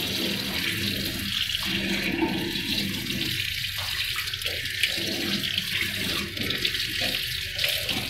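Water running steadily from a chrome bibcock tap and splashing into a ceramic washbasin.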